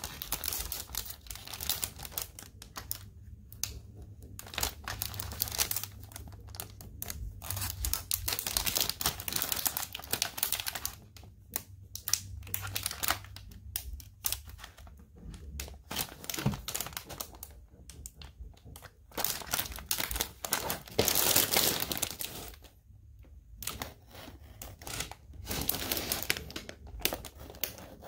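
Clear plastic packaging crinkling and crackling in irregular bursts with short pauses, as it is cut and peeled free of a taped cardboard insert with a hobby knife. The loudest burst comes a little past two-thirds of the way through.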